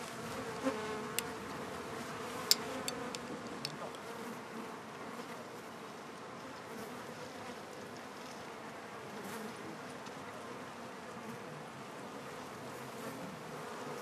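Swarm of small biting flies buzzing in a steady drone, with a few faint clicks in the first four seconds.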